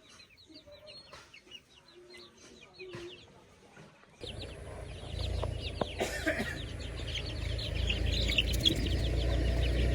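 Chickens clucking, with many short high-pitched calls from the flock. About four seconds in, the sound becomes much louder and busier, with a low rumble underneath.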